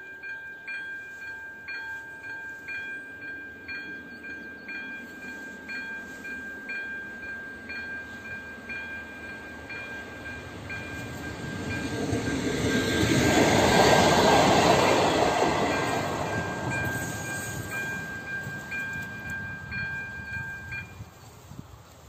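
Electronic warning bell of an AŽD 97 level crossing ringing in evenly repeated dings while a passenger train passes; the train's rumble swells to its loudest a little past the middle and fades again. The bell stops shortly before the end.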